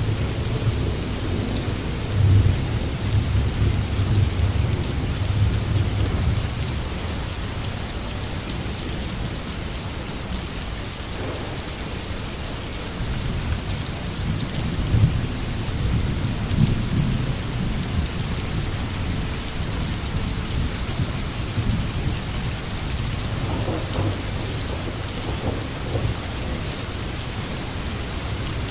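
Steady rain hissing, with low rolls of thunder rumbling under it at the start, again in the middle, and near the end.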